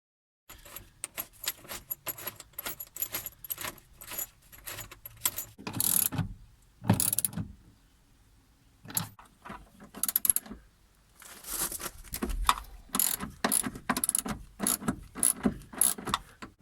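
Irregular runs of sharp metallic clicking and rattling from hand tools and loose hardware being worked, with louder clattering bursts about six and seven seconds in and again through the last few seconds.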